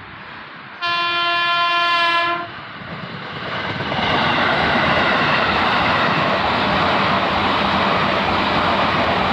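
KRL electric commuter train sounds one steady horn blast of about a second and a half. A couple of seconds later the train arrives and passes close by, its wheels on the rails making a loud steady rumble.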